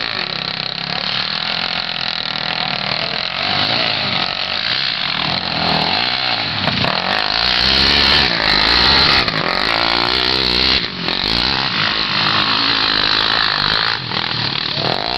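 A small off-road vehicle's engine revving up and down, growing louder about halfway through.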